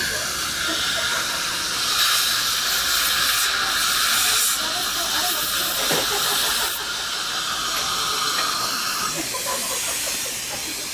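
Steady air hiss from dental chairside equipment, louder for about five seconds starting two seconds in.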